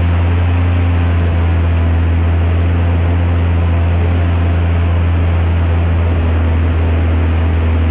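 Airboat's Lycoming aircraft engine and propeller running loud and steady at a constant pitch.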